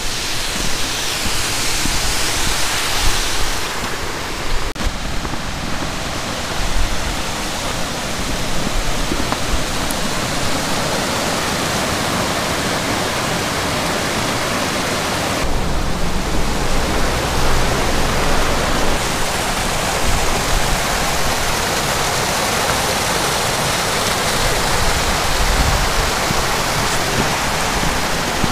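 Steady rushing of a mountain stream and waterfall tumbling over rocks, with a low rumble for a few seconds past the middle.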